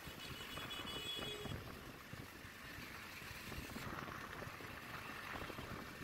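Wind rushing over the microphone and road noise from a motorcycle riding in traffic, a steady rumble.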